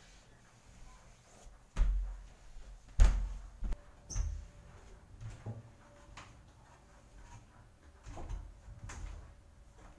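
Several heavy thuds and knocks, the loudest about three seconds in, then a cluster of footfalls on a wooden ladder near the end.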